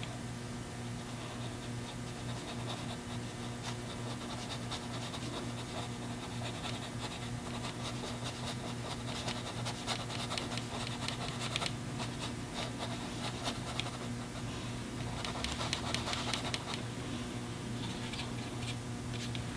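Paintbrush scratching across a canvas in light, quick horizontal strokes, over a steady low hum.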